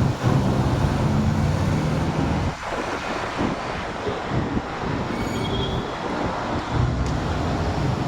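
Steady road-traffic noise with a vehicle engine's low hum, which eases off in the middle and comes back near the end.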